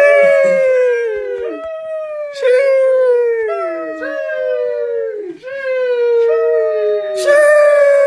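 The 'sheesh' meme sound effect on a loop: a high voice drawing out 'sheeesh', each one starting with a hiss and then sliding down in pitch. It repeats about once a second, each call overlapping the next.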